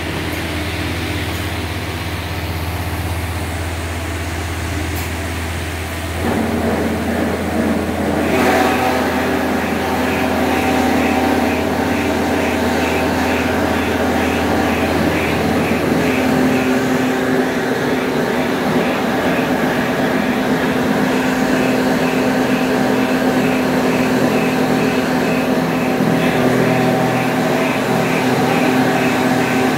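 Machinery of a plastic granule-making extruder line running: electric motors and gearboxes humming steadily. About eight seconds in the sound grows louder and a higher steady hum joins, with a regular ticking over it.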